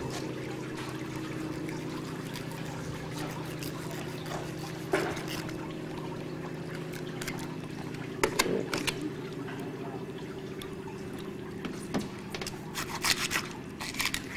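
Running water trickling and pouring over a salmon as it is cleaned, over a steady low hum. A few sharp clicks and knocks from handling the fish and tools come through, clustered about halfway and near the end.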